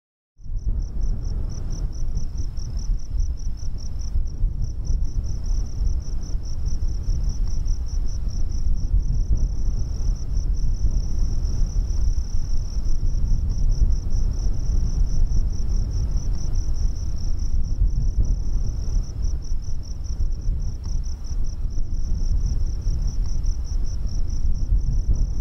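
A continuous, rapidly pulsing high-pitched trill like a chorus of crickets, over a steady low rumble. It starts and stops abruptly.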